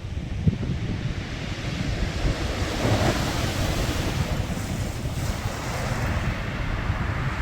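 Sea waves washing in, a wave building and breaking about three seconds in, with wind buffeting the microphone as a steady low rumble.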